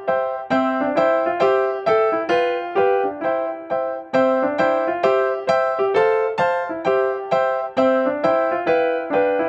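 Background music: a keyboard melody of quick, evenly struck notes with a light, steady pulse.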